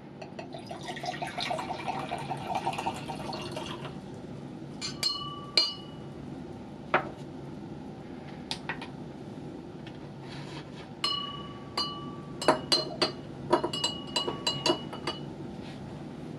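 Dilute acetic acid poured from a glass volumetric flask into a glass beaker for about three seconds, the filling note rising as it fills. Then a scatter of glass clinks and taps on the beaker, several ringing briefly at the same pitch.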